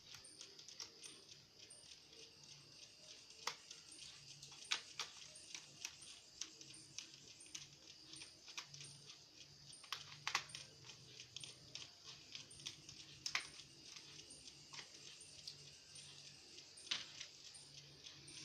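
Scattered small clicks and taps of laptop parts, plastic casing and screws, being handled while an Asus 1015e netbook is taken apart, over a faint steady hum.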